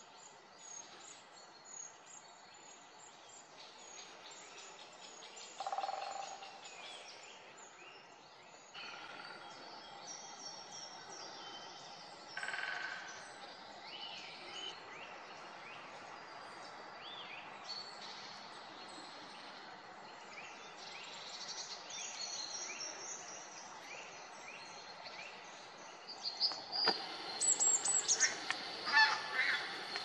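Forest birds calling with many short, thin high chirps, with louder single calls about six and twelve seconds in. From about four seconds before the end, loud repeated calls of a larger bird come in, some sweeping up in pitch.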